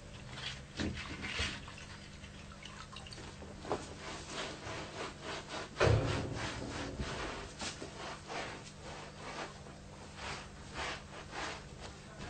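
Hands rubbing and scrubbing a sheepskin on the floor in repeated short strokes, roughly two a second, with one louder thump about six seconds in.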